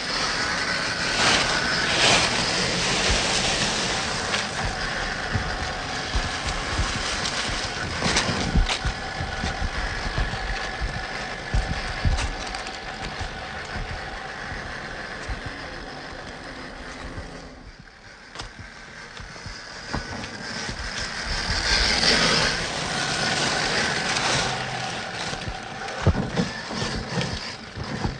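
Whine of an RC crawler's brushed electric motor (Holmes Hobbies Trailmaster 550 27t) and geartrain, rising and falling as the truck drives. It drops low about two-thirds of the way through, then swells again. Tyres crunch and knock on dirt, leaves and rocks now and then.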